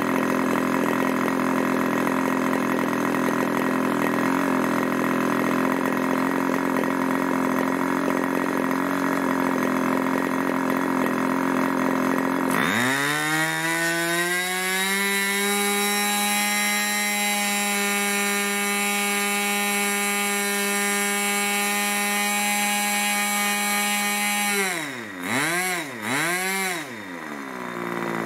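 Irvine 40 MkII two-stroke glow engine spinning a 10x6 propeller on a test stand. It idles steadily at about 2,600 rpm with a deep burble, then about twelve seconds in the throttle opens and it climbs quickly to a steady high-pitched run at full speed, around 12,000 rpm. Near the end the pitch dips and recovers twice before it is throttled back.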